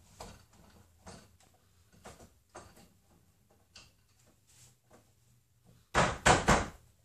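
Wooden knocks and rattles from a canvas on its stretcher frame being fitted onto a wooden studio easel and its top clamp adjusted: a light knock about every second, then three loud knocks in quick succession near the end.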